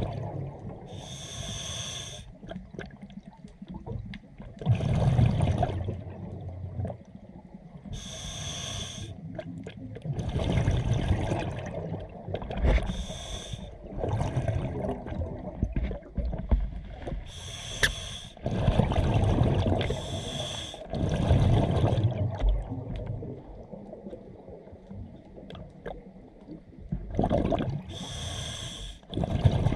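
A scuba diver breathing through a regulator underwater. Hissing inhalations alternate with gurgling bursts of exhaled bubbles, a breath every few seconds.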